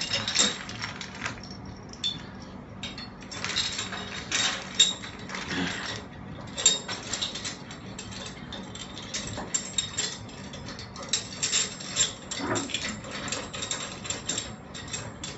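Metal clamps and their fasteners being handled and fitted to an air-conditioner's mounting stand: irregular sharp metallic clicks and clinks.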